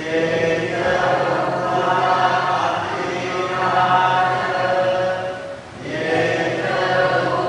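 Buddhist devotional chanting by a group of voices in unison, on long held notes, with a short pause for breath about six seconds in.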